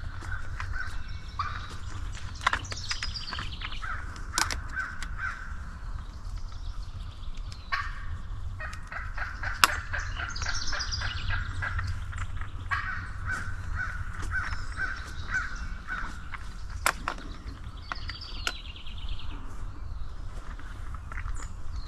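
Wild turkeys calling: long runs of quick repeated notes with several higher rolling, gobble-like rattles. A few sharp clicks and a steady low rumble run underneath.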